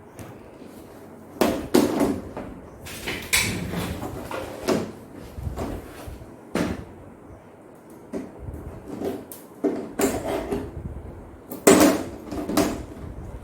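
Irregular knocks, clicks and clatter of plastic TV parts being handled and pried apart as the LED TV's press-lock plastic frame and cover come off. There are about half a dozen sharper knocks, the loudest near the end.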